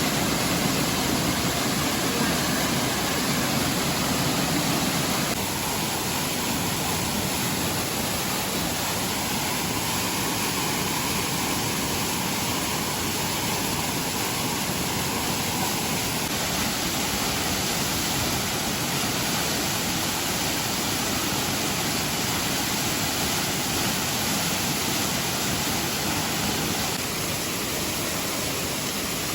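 A waterfall in strong flow: a steady, even rush of falling water, a little quieter from about five seconds in.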